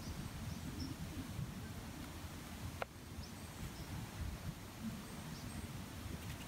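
Outdoor ambience: a steady low rumble with a few faint, short bird chirps, and one sharp click about three seconds in.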